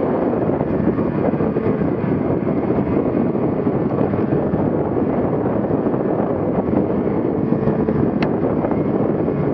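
Ski-Doo Gen 4 850 two-stroke snowmobile engine running steadily under way, mostly buried under heavy wind rushing over the microphone. A brief sharp tick about eight seconds in.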